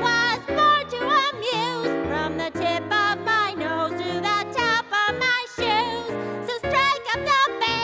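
The song's music without words: a melody with vibrato over a moving bass line.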